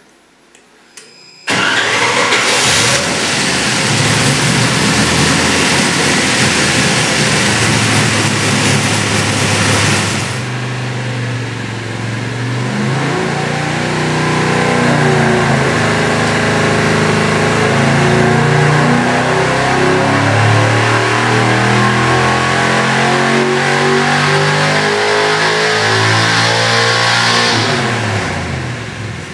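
Carbureted 357-cubic-inch LT1 small-block V8 on an engine dyno, loud from about a second and a half in, then run under load in a dyno pull with its pitch changing for some fifteen seconds before dropping back near the end. The pull is testing a slightly richened fuel mixture.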